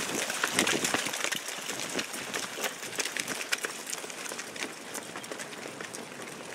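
Many soldiers' combat boots hurrying on asphalt: a dense, irregular patter of footfalls that thins out and grows quieter as the group slows from a jog to a walk.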